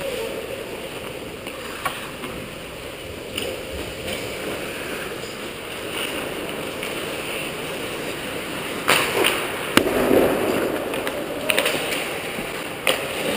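Ice hockey play at the goal: skate blades scraping on the ice with sharp clacks of sticks and puck scattered through. It gets louder and busier about two-thirds of the way in, with several cracks close together as players crowd the net.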